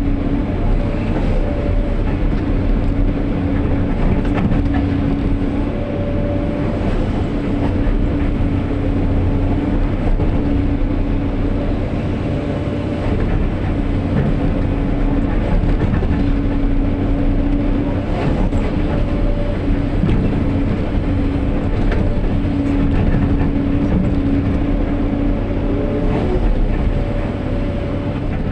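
SANY SY215 hydraulic excavator working: its diesel engine running steadily under load, with a whining tone that comes and goes every few seconds.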